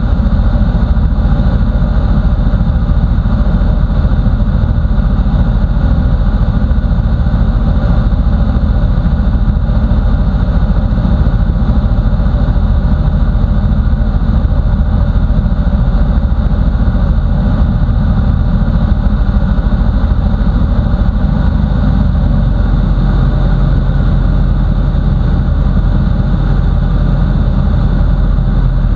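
Bushby Mustang II light aircraft's piston engine and propeller running steadily, heard from inside the cockpit on final approach. The engine note shifts slightly about three quarters of the way through.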